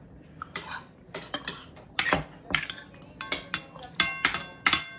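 Metal forks and spoons clicking and scraping against dinner plates during a meal, with a run of ringing clinks between about three and five seconds in.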